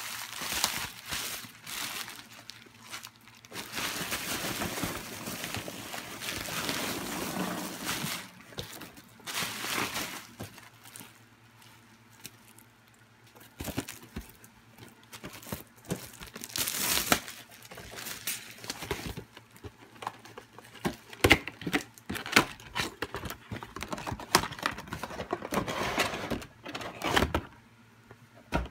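Bubble wrap and plastic packaging crinkling and rustling as it is handled, in irregular bursts with a short lull partway through and a few sharp clicks about two-thirds of the way in.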